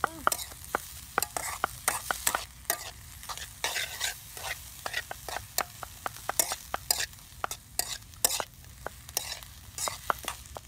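Metal spoon stirring small shrimp in a steel wok, with quick, irregular clinks and scrapes of spoon on pan over a light sizzle of frying.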